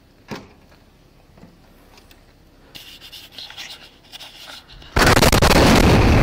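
Sudden, very loud blast of the Nashville RV bomb about five seconds in, heard on a police body camera and carrying on as a loud rumble. Before it, scratchy rubbing against the camera microphone and a single knock near the start.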